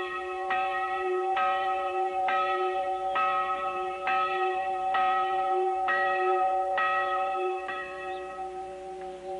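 A church bell tolling, about nine strokes just under a second apart, each hum carrying into the next. The strokes stop near the end and the ring dies away.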